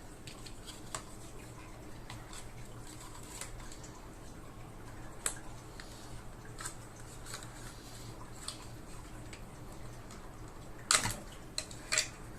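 Scattered light clicks and taps from hands handling the opened robot vacuum's plastic parts, with a louder cluster of knocks about eleven seconds in and another shortly after, over a faint steady hum.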